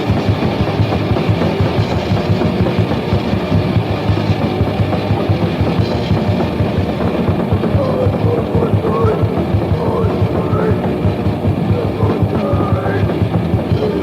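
Japanese crust punk band playing at full tilt: a loud, dense wall of distorted rock music with a fast, driving drum kit, from a lo-fi demo recording.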